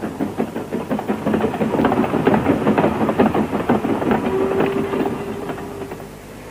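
00 gauge model goods train running over the track, a rapid, dense clatter of wheel clicks. A steady hum comes in about four seconds in, and the clatter fades near the end.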